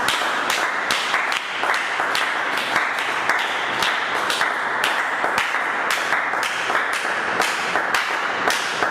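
A congregation clapping together in a steady rhythm, about three claps a second.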